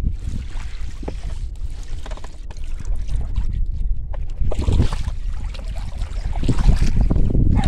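Wind buffeting the microphone with a low rumble, over a few clunks and rattles about halfway through and near the end as a small outboard motor is clamped onto an inflatable tender's transom and tilted down.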